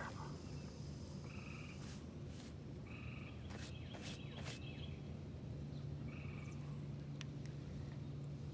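Frogs calling, short calls repeating every second or two, over a faint steady low hum, with a few light clicks.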